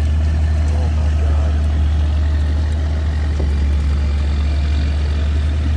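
An engine idling steadily, a constant low drone with no change in speed.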